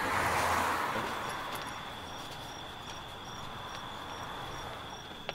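Night insect ambience: crickets chirping in an even pulse of about two to three chirps a second over a thin steady high trill and a soft hiss. A brief rush of noise comes first and is the loudest part.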